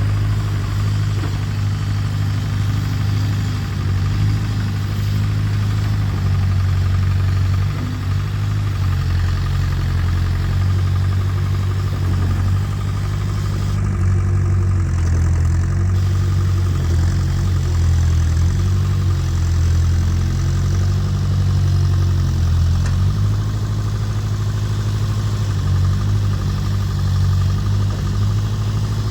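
International 3414 backhoe's diesel engine running steadily under way, its note shifting slightly now and then.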